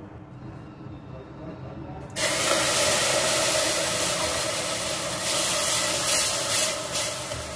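Loud, steady hissing sizzle of cooking in a hot pan. It starts suddenly about two seconds in and swells a little.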